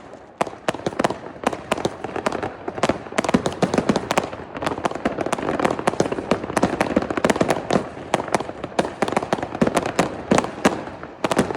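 Dense, continuous fireworks and firecrackers going off all around: a rapid, unbroken crackle of bangs and pops, many sources overlapping.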